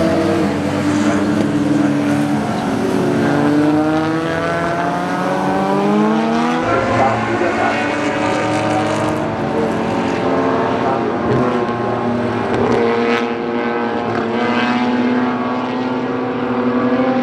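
Historic racing car engines at speed on a circuit, more than one car at times. Engine pitch climbs as they accelerate, drops suddenly about six seconds in, then climbs again.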